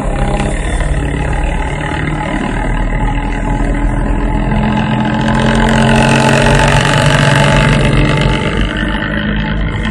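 Old bus engine running through a 'ngorok' modified exhaust, a deep snoring rumble, growing louder for a couple of seconds past the middle and then easing back.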